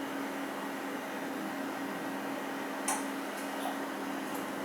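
Steady low electrical hum with a faint hiss, and one light click about three seconds in.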